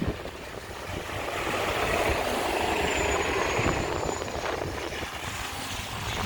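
City bus passing by on a wet street: its engine and tyre noise swell to a peak about two to four seconds in, then fade. A faint high whine runs along near the middle.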